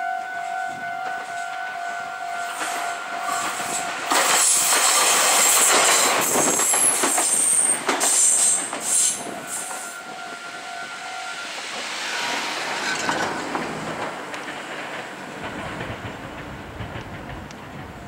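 A Meitetsu 3100-series electric train passes the level crossing, loudest from about four to ten seconds in, then fading as it moves away. Over it the crossing's electronic warning alarm rings a steady tone, which stops about eleven seconds in once the train has cleared.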